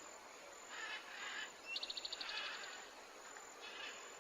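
Faint outdoor nature ambience, with a short, fast, high-pitched trill about two seconds in.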